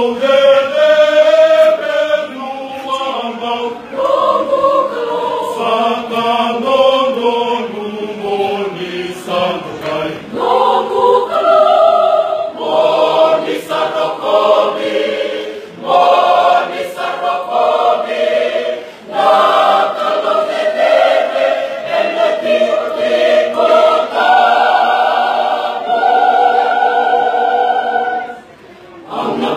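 Methodist church choir singing a Fijian-language choral piece, several voices together in sustained phrases with brief breaks between them and a short pause near the end.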